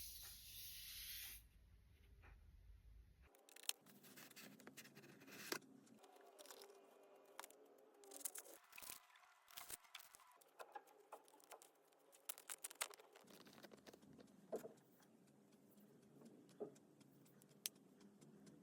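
Faint handling of product packaging: a brief hiss at the start, then scattered clicks, taps and scrapes as the box and its contents are opened and moved about.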